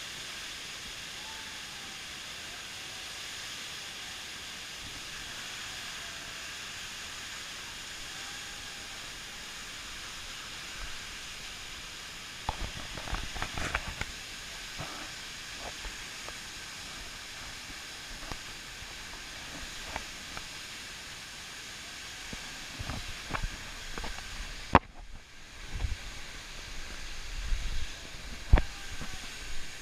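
Steady rushing of a waterfall. About halfway through come scattered knocks and thumps, and there is a brief dropout near the end.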